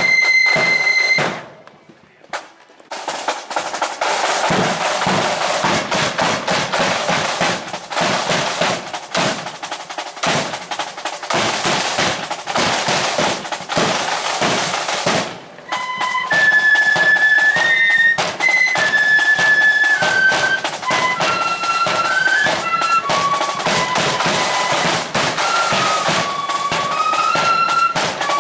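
Marching flute band: the flutes finish a tune about a second in, and after a brief lull the drums play on their own. Roughly halfway through, the flutes come back in with a new melody over the drums.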